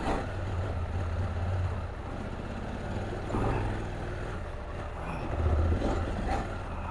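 KTM 790 Adventure's parallel-twin engine running at low to moderate revs while riding off-road. It gets louder twice, and there are a few short knocks from the bike over rough ground.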